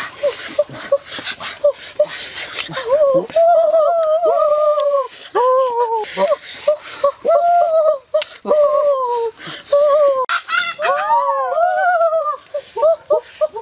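A cleaver chopping and slicing pork on a wooden chopping block, with sharp strikes in the first few seconds. After that comes a long run of short, loud pitched calls that rise and fall.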